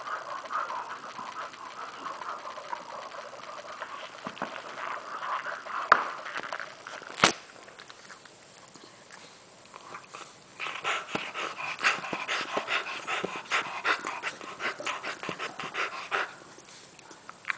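Dogs gnawing hard Chew Lotta chew bones: rapid clicking and crunching of teeth on the chew. There is one sharp click about seven seconds in, then a quieter stretch before the chewing picks up again.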